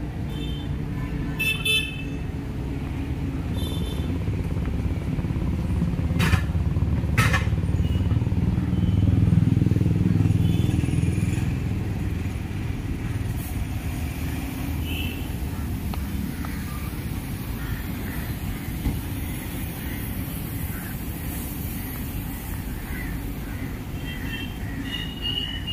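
Busy city street traffic: engines running steadily, with a vehicle growing louder and passing about ten seconds in, and short horn toots.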